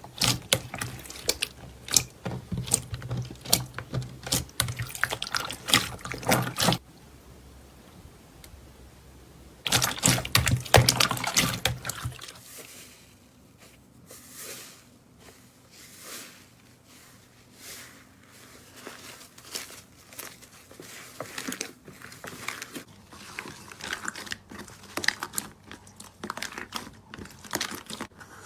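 Slime being squished, pressed and stretched by hand, making dense wet clicks, pops and crackles. There is a quiet pause a third of the way through, a loud burst of clicking, then softer, sparser sticky pops to the end.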